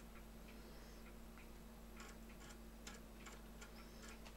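Faint, irregular clicks of an Amiga 500 floppy drive stepping its head while it reads the Workbench 1.3 boot disk, over a low steady hum.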